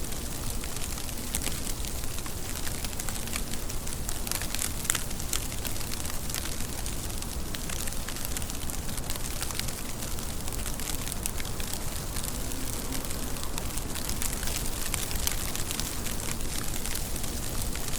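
Steady rain: a constant hiss with many sharp drop ticks scattered through it.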